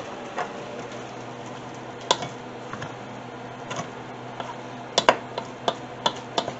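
Wooden spoon knocking and scraping against a stainless steel pot while spaghetti is tossed with butter and garlic: irregular light clicks, with a couple of louder knocks about five seconds in.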